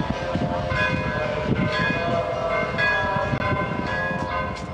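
Bells ringing: several overlapping ringing tones at different pitches, each holding for half a second to a second before the next takes over.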